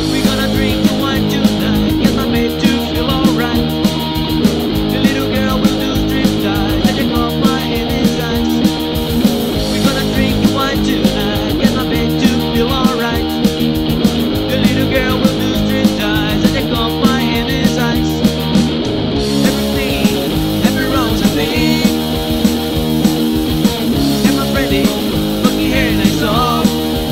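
Loud rock music played by a band: electric guitar and drums, with a fast, even beat of cymbal hits.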